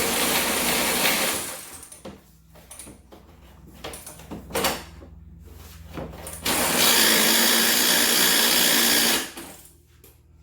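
A power tool runs in two long bursts, about two seconds near the start and nearly three seconds in the middle, working on the 13 mm bolt that holds the ATV's exhaust pipe. Short knocks of tool on metal fall between the bursts.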